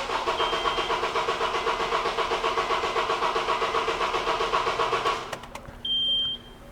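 Honda Accord 2.4-litre four-cylinder engine cranking on the starter with its ignition coils unplugged, so it turns over without firing, in an even rhythmic beat for about five seconds before it stops. A short high electronic beep follows near the end.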